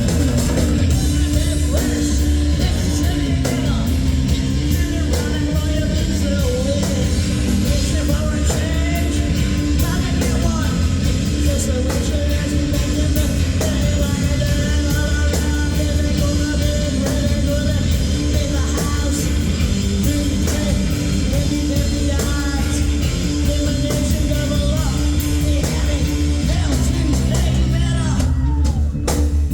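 Rock band playing live, with a voice singing over loud, continuous drums and amplified instruments.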